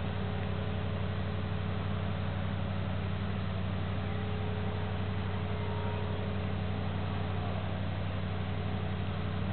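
Heavy-haulage diesel engine running steadily as the abnormal-load transporter moves at walking pace: a low, even drone that holds one pitch.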